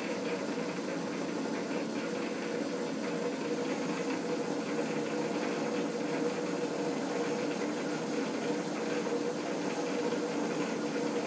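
Metal lathe running slowly in screw-cutting, with its threading tool chasing an M50 x 1.5 thread on a steel collet-chuck body: a steady machine hum with a few held tones and a hiss.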